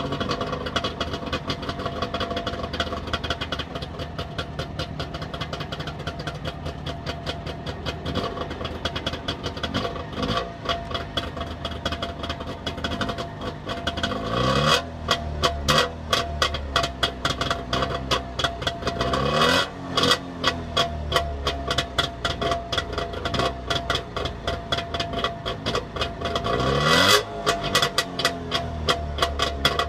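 Trabant 601's two-stroke air-cooled twin idling through its new exhaust, with the rapid, uneven popping of a two-stroke, revved up and let fall back in several short blips.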